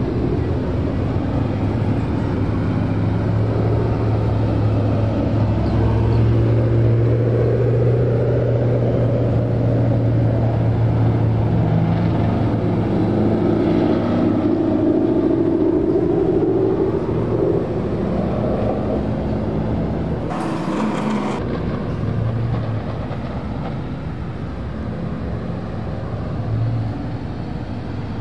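A line of Ford Mustangs driving past in a slow cruise: a continuous low engine drone whose pitch rises and falls as the cars go by. A short hiss comes about two-thirds of the way through.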